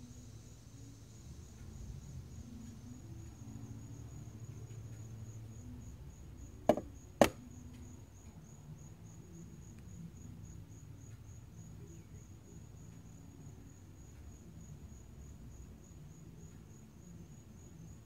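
An insect trilling steadily at a high pitch in a fast, even pulse. About seven seconds in, two sharp clicks half a second apart stand out as the loudest sounds.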